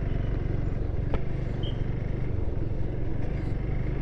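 Motorcycle engine running steadily while riding in slow town traffic, with a single sharp click about a second in.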